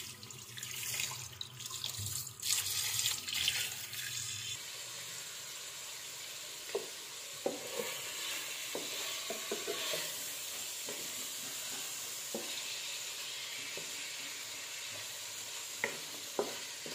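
Tap water running and splashing onto raw chicken pieces in a bowl in a stainless-steel sink as they are rinsed by hand. About four seconds in, this gives way to chicken pieces sizzling steadily in oil in a frying pan, with occasional clicks and scrapes of a wooden spatula stirring them.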